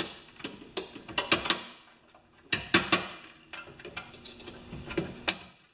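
Steel punch and hammer driving a split ring onto the axle shaft of a Honda HRR216 mower transmission: a run of sharp metal taps and clicks at uneven intervals. A sharp click near the end is the ring snapping into place.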